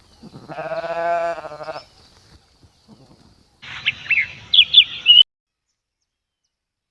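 A sheep bleats once, a single wavering call about a second and a half long, followed a couple of seconds later by several quick, high bird chirps that stop abruptly.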